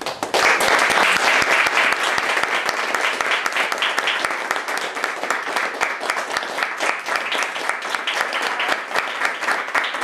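Audience applauding. It starts suddenly and is densest in the first few seconds, then eases into fewer, more separate claps toward the end.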